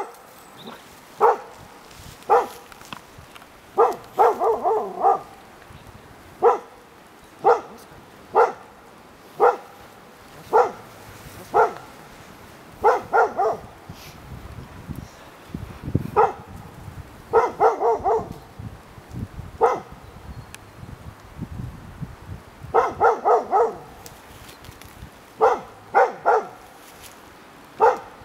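Nova Scotia Duck Tolling Retriever barking over and over, single sharp barks about a second apart broken by quick runs of three or four.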